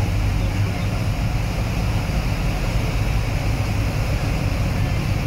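Boat engine running steadily, heard on board as an even low drone.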